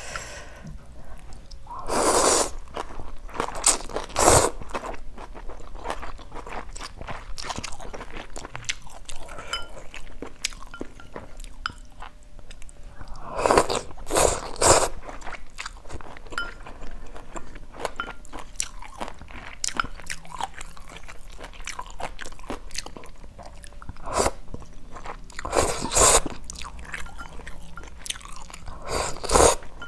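Close-miked eating of instant noodles with water spinach: several loud, short slurps of noodles spread through, with steady chewing and crunching in between.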